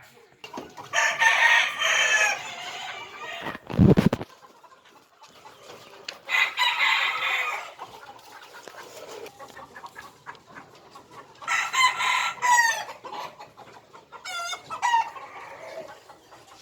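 Rooster crowing: three long crows a few seconds apart, then shorter warbling calls near the end. A dull low thump comes about four seconds in.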